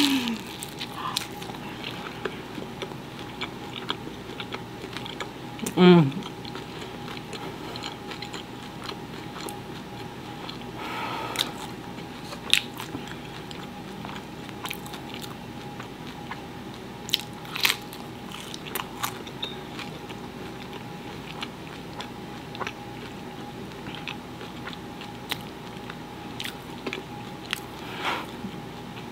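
A person biting into and chewing crusty pizza crust, with scattered crisp crunches and mouth sounds. About six seconds in there is a brief falling voice sound from the eater.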